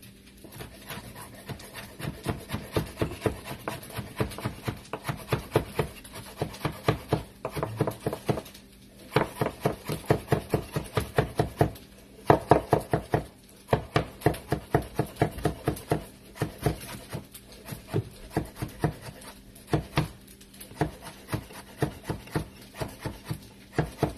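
Chef's knife chopping cooked longganisa sausage on a wooden cutting board: rapid knocks of the blade on the board, about four a second, in runs broken by short pauses.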